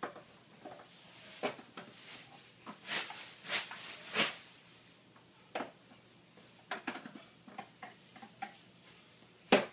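Light plastic clicks and knocks of a toy kitchen and its play pieces being handled by a small child, coming irregularly a second or so apart, with a louder knock near the end.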